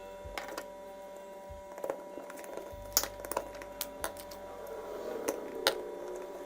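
Scattered light clicks and knocks, as of tools or metal parts being handled, sounding over a faint steady hum.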